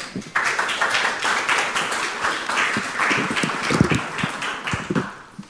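Audience applauding. The clapping starts a moment in and dies away near the end.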